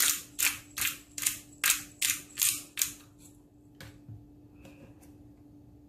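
Hand-twisted metal pepper grinder grinding black peppercorns in quick twists, a rasping grind about two and a half strokes a second that stops about three seconds in. A faint steady hum runs underneath.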